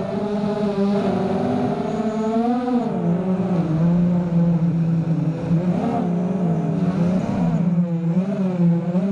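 Five-inch FPV racing quadcopter's brushless motors (Cobra 2206 2100KV) and HQ 5x4.5 bullnose props whining, the pitch swinging up and down over and over as the throttle changes.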